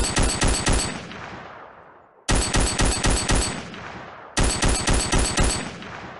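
Machine-gun fire sound effect: three short bursts of rapid shots, about six shots each, each burst trailing off in a long fading echo.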